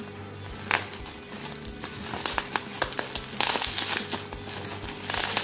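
Black plastic parcel wrapping crinkling and rustling as it is handled and torn open by hand, in irregular crackly bursts that thicken from about two seconds in, over background music.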